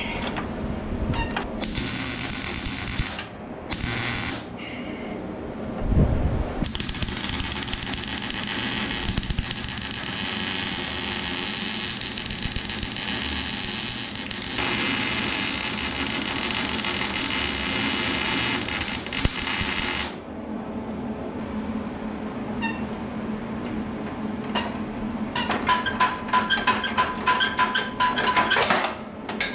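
Wire-feed welder arc: two short tacks about two and four seconds in, then one continuous weld of about thirteen seconds, steel on a garden-tractor frame. A thump comes just before the long weld, and near the end there is a quick run of clicks and scraping.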